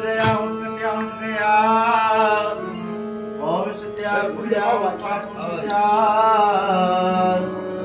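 Devotional music: a voice singing an ornamented, gliding melody over a steady held drone.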